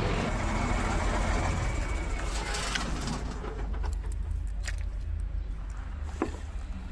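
Steady outdoor background noise with a heavy low rumble and a few short, sharp knocks.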